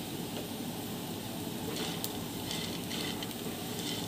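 Slivered almonds, cashews, pistachios and chironji sizzling steadily as they fry in a non-stick frying pan, stirred with a silicone spatula. The nuts have turned golden brown and are ready to come off the heat.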